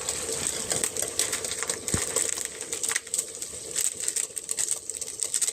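Goat mutton frying in oil in a pan, with garam masala just added: irregular crackling and spitting over a steady sizzle.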